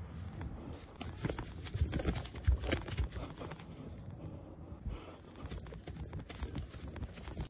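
Hands and feet padding on grass in an uneven rhythm as a person runs on all fours, the hits heaviest in the first few seconds.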